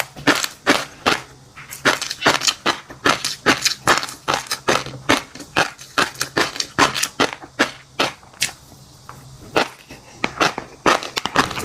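Close-miked chewing of fish roe and crunchy seafood: rapid, sharp pops and crunches, a few a second and irregular, easing off briefly about eight seconds in.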